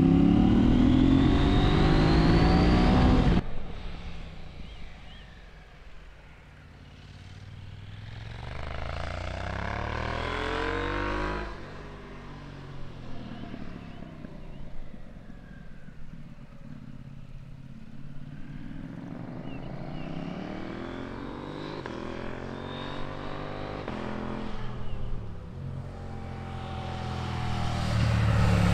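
KTM 790 Adventure R's parallel-twin engine running under way, revs climbing loudly as it accelerates, then cut off suddenly about three seconds in. After that the engine is heard fainter, rising and falling in revs, and it grows loud again near the end.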